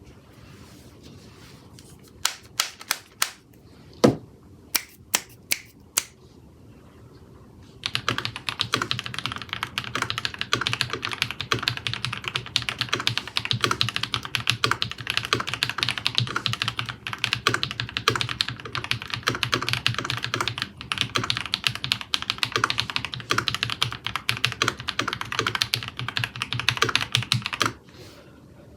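Keychron V5 mechanical keyboard with KTT Kang White switches and GMK Apollo keycaps being typed on. First a handful of single key presses spaced apart, one louder than the rest, then about a second later a long run of fast continuous typing that stops shortly before the end.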